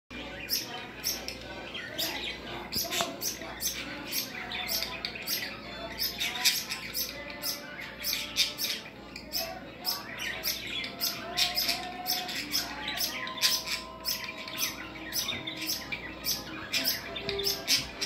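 Budgerigar chicks giving short raspy chirps, two or three a second, on and on without a break.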